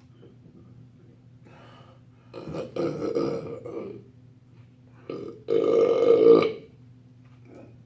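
A man burping loudly twice, two long belches each over a second long, the second one louder.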